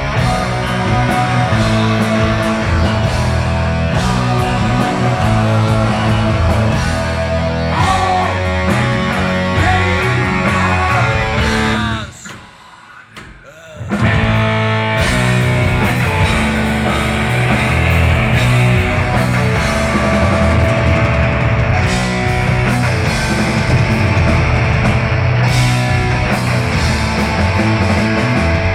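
Heavy metal band playing loud, with distorted electric guitars, bass and drum kit. The band stops for about two seconds just before halfway, then comes back in at full volume.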